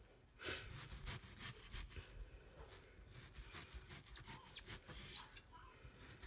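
Chef's knife slicing repeatedly into a red onion on a plastic cutting board: quiet, crisp cuts, with faint squeaks from the onion layers against the blade.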